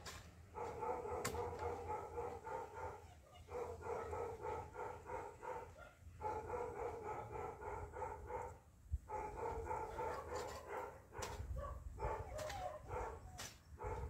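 A dog barking repeatedly in bouts of a second or two, with short pauses between the bouts.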